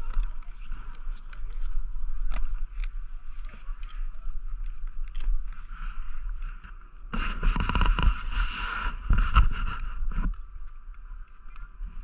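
Snowboard sliding over groomed snow, with wind rumbling on the camera's microphone. About seven seconds in, a louder scraping noise lasts some three seconds as the edge digs into the snow.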